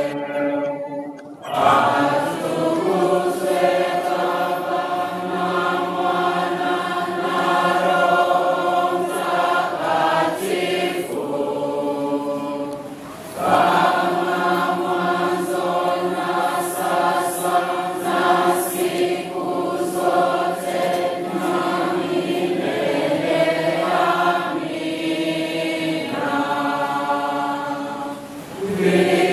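A church congregation singing a hymn together, many voices holding long, sustained lines. There are short breaks between phrases about a second and a half in, about halfway through and near the end.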